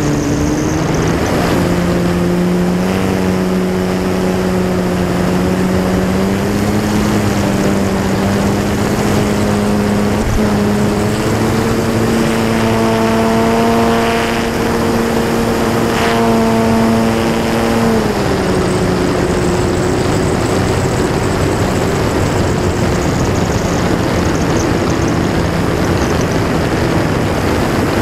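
Techone Air Titan RC plane's electric motor and propeller running in flight, heard from the plane's own camera. A steady humming buzz climbs in pitch over the first dozen seconds, holds high, then drops back about eighteen seconds in as the throttle eases. Airflow rushes over the microphone throughout.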